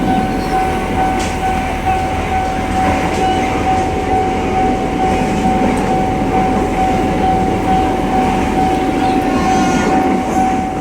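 Airport train running, a steady rumble with a constant high-pitched whine held throughout.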